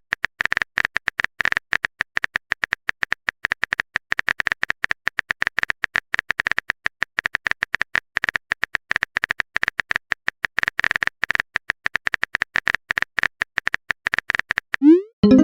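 Smartphone on-screen keyboard typing clicks: a rapid, irregular run of short taps with no pause, as a chat message is typed out.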